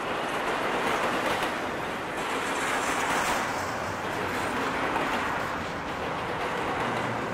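A train rolling past close by: a steady rush and rumble of steel wheels on rail that swells and eases a little.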